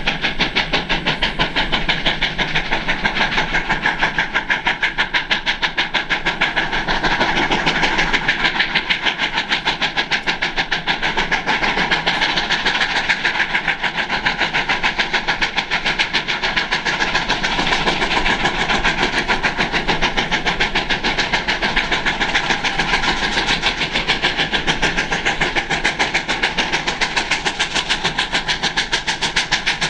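Two steam locomotives double-heading a passenger train, their exhausts chuffing in a rapid, steady beat as they work hard.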